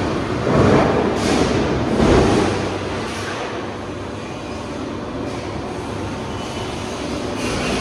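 Guimadira GHE-630 guillotine shear running, a steady mechanical noise with two louder surges about a second and a half apart.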